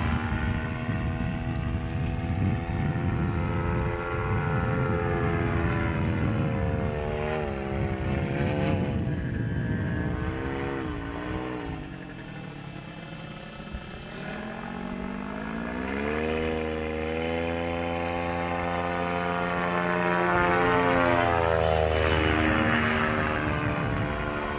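Paramotor's Simonini Mini 4 two-stroke engine and propeller running in flight overhead. The pitch wavers down and up several times, and the sound is loudest late on, then drops in pitch as it passes.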